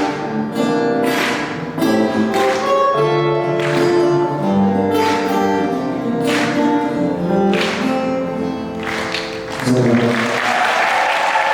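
Music led by an acoustic guitar strumming chords. Applause rises near the end.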